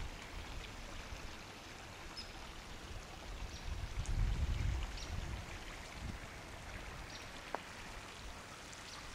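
Small woodland creek flowing, a steady rushing hiss of running water. There is a low rumble about four seconds in, and a few faint short high chirps.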